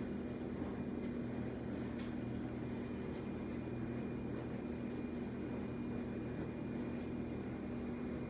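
A steady electrical hum with a faint high whine, from a running appliance or fan, with a few faint soft ticks about two and three seconds in.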